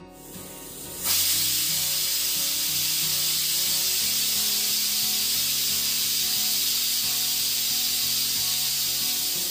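Pressure cooker venting steam, a loud steady hiss starting about a second in.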